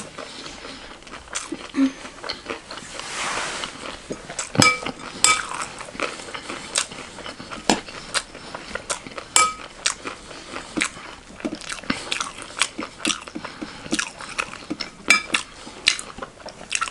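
Metal spoon stirring and scraping chatpatey, a dry spiced puffed-rice mix, in a glass bowl: a run of irregular sharp clicks with light crunching. A few clinks ring briefly against the glass.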